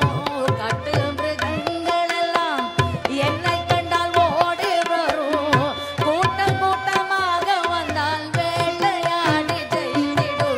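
Live Carnatic music: a woman's voice singing with ornamented, gliding notes, accompanied by violin and hand drums played in a steady rhythm.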